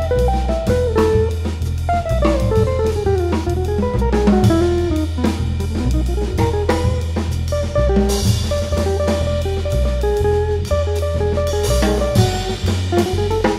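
Contemporary jazz guitar trio playing: electric guitar melody with a falling then rising run, over double bass notes and drum kit. Cymbals grow brighter and louder about eight seconds in.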